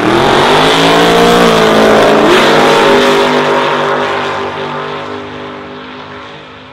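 Drag-racing cars launching off the line at full throttle. The engine pitch climbs, jumps up suddenly about two seconds in, and the sound fades as the cars pull away down the strip.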